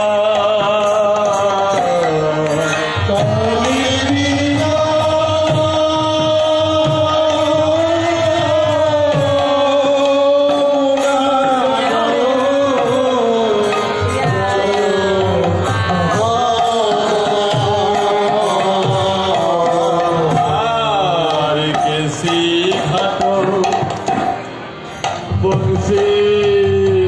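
Devotional kirtan music: a voice singing a long, sliding chant melody over a hand drum keeping a steady beat, briefly softer a few seconds before the end.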